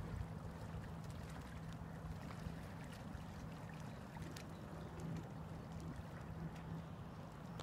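A faint, steady low engine hum holding one pitch, over a soft haze of water and wind noise.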